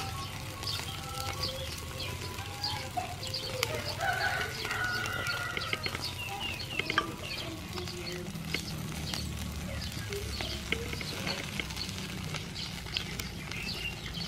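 Octopus skewers sizzling on a charcoal grill, with frequent small crackles and pops as the sauce is brushed on. Chickens and other birds call in the background.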